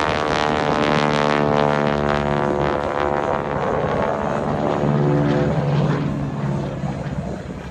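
Propeller-driven aerobatic airplane's piston engine flying past, its note sinking in pitch as it goes by, then running steadier and fading near the end.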